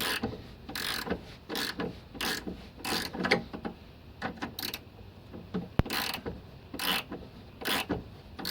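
Ratchet wrench working a bolt on a lower suspension arm, clicking in short bursts, about one or two a second, as the bolt is drawn up against the rubber bushes to squeeze them into place. A single sharp click comes near the middle.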